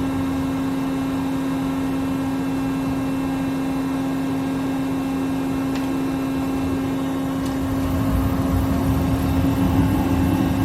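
Doosan Puma MX2500ST CNC mill-turn center running with a steady hum made of several constant tones. About eight seconds in, a louder, rougher low rumble joins it.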